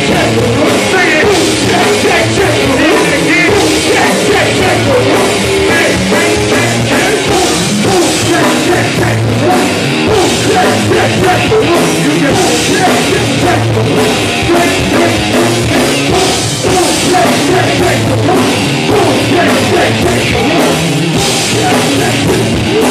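Live rock band playing loud, with a driving drum kit under the full band.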